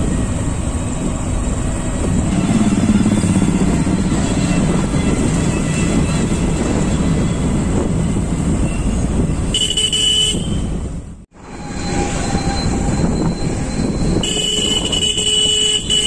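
Steady wind rush and engine noise of a moving motorcycle, heard from the rider's seat. A vehicle horn toots briefly about ten seconds in and again for a couple of seconds near the end, and the sound cuts out for an instant between the two.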